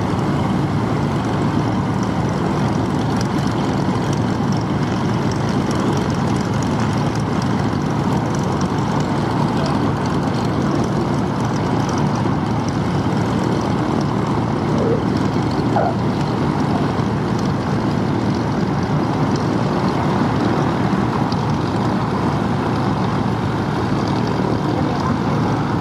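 The four Wright R-3350 radial piston engines of the B-29 Superfortress "Doc" running with a steady propeller drone as the bomber lands and rolls out.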